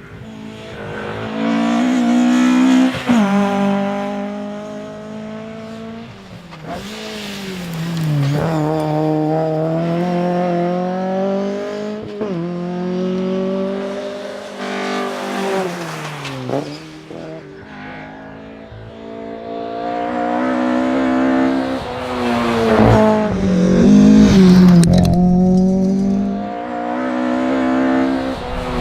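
Fiat 131 Abarth Rallye's twin-cam four-cylinder engine driven hard, revving up and dropping back sharply again and again as it shifts gears and lifts off.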